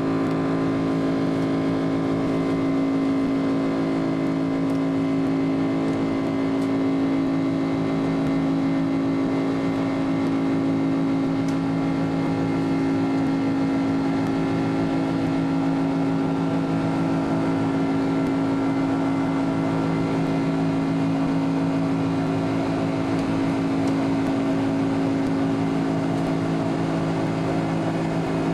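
Steady jet airliner cabin noise inside an Airbus A300-600: engine and airflow rush with a steady hum of several low tones.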